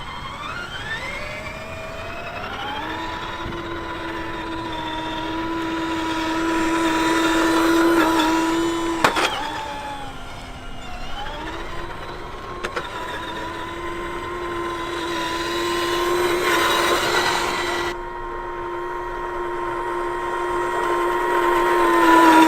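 Electric RC truck's motor and gears whining as it drives: the pitch climbs over the first few seconds and holds steady, drops briefly after a sharp click about nine seconds in, then climbs back and holds.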